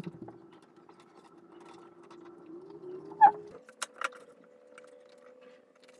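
Metal clinks and knocks of bar clamps being adjusted and tightened across a glued-up cutting board. The loudest is a short squeaky clank a little past the middle, followed by two quicker knocks, over a steady low hum that steps up in pitch at about the same point.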